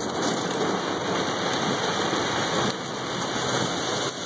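Heavy storm rain pelting the car's roof and windshield in a dense, steady hiss, heard from inside the cabin.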